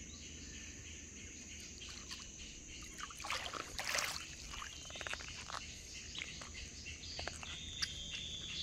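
A steady high-pitched insect drone with scattered bird chirps over it; a brief louder rustle-like burst about three to four seconds in, and a held whistled note near the end.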